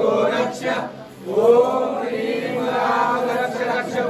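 Several voices chanting a devotional mantra together in long drawn-out notes. The chant breaks off briefly about a second in, then resumes on a rising, held note.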